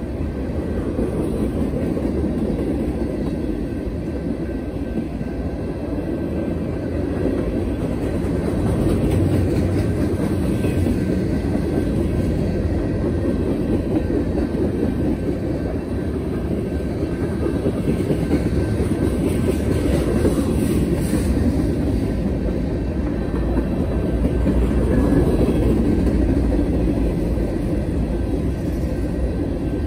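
Freight train cars rolling past close by at speed: a steady, loud low rolling noise of steel wheels on rail.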